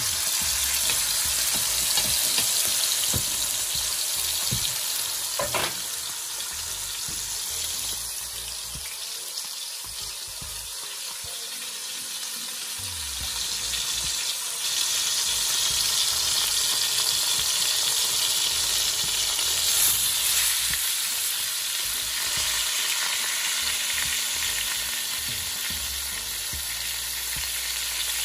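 Seasoned beef ribs sizzling as they brown in hot grapeseed oil in an aluminium Dutch pot. The sizzle eases off, then grows louder about halfway through as another rib goes into the oil, with a single light click early on.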